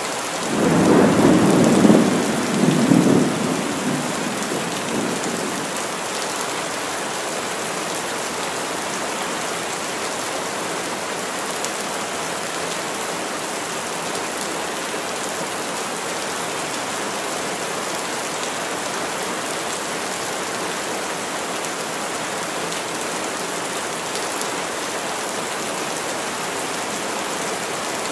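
Heavy rain falling steadily through forest trees. A thunder rumble breaks in as it starts, swelling to two peaks over the first few seconds and then fading back under the rain.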